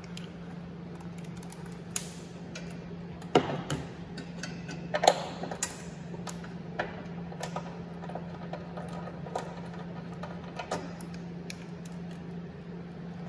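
Scattered light metallic clicks and taps of bolts and a socket extension being handled and turned in by hand under a car, with a couple of louder knocks about three and a half and five seconds in. A steady low hum runs underneath.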